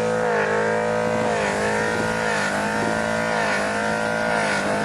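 A Neon's four-cylinder engine running hard at high revs under load. The pitch holds steady with a few brief dips.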